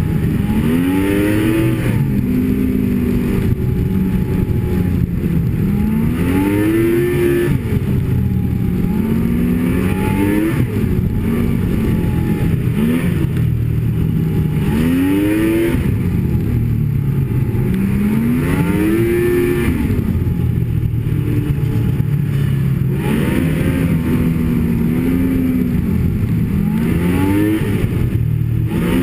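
Snowmobile engine under way, its pitch climbing and dropping back every two to three seconds as the throttle is opened and eased, over a steady low rush of track and wind noise.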